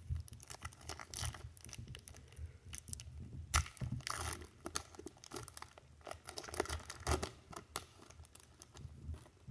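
A foil Topps baseball card pack wrapper being torn open and crinkled by hand: a run of sharp crackles, loudest about three and a half seconds in.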